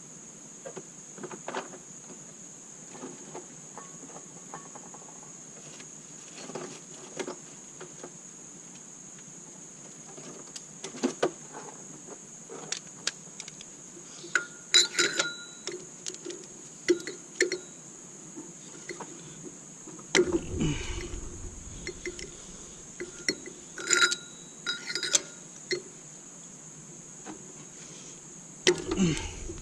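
Metal hand tools clinking and tapping against the engine, with bursts of quick ratchet clicks, as the spark plugs are taken out of a 3.5L V6. A few dull bumps and a steady high whine sit underneath.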